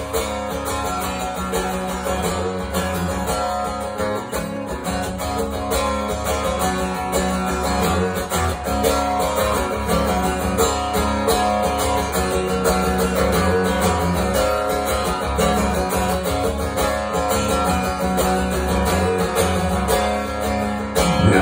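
Acoustic guitar played solo and strummed steadily in chords, an instrumental break between sung verses of a country song with no voice.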